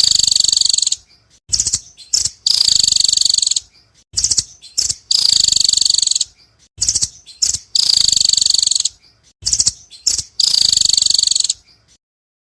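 Nuthatch (rambatan) calling: rapid high-pitched trills of about a second each, repeated every second or two with short chips between, cutting off near the end.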